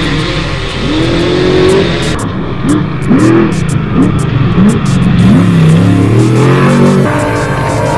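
Unlimited-class off-road trophy truck engine revving, its pitch climbing and dropping again several times in quick surges.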